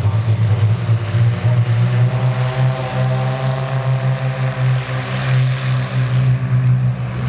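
Propeller engines of XtremeAir XA42 aerobatic planes (Lycoming AEIO-580) running on the runway, a loud, steady low drone with a humming overtone above it.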